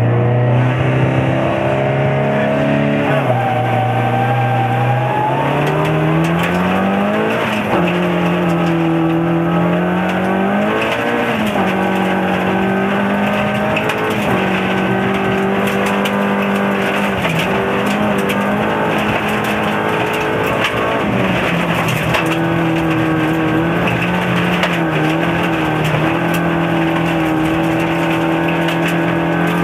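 Opel Astra GSi rally car's four-cylinder engine heard from inside the cabin, at hard throttle on a gravel stage: the revs climb and drop back sharply with each gear change, with stones clicking against the car.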